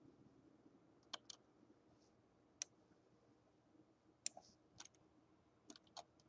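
Faint computer mouse clicks, a handful of short, sharp clicks scattered unevenly over near-silent room tone.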